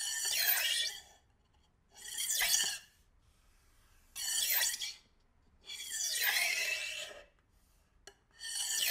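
A butter knife dragged across a kitchen countertop past a close microphone, in five separate scraping passes of about a second each. The knife is flipped over as it passes the mic, so each rasping sweep shifts in pitch like a Doppler flyby.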